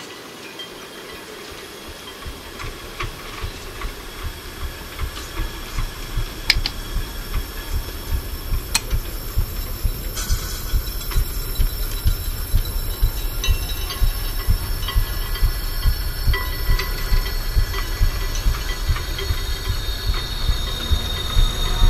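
Film sound-design soundtrack: a low rhythmic pounding, about two to three beats a second, swelling steadily in loudness under a steady hiss, with a few sharp clicks along the way.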